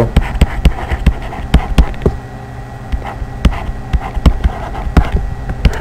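A digital pen clicking and tapping irregularly against a writing tablet as words are handwritten, over a steady low electrical hum.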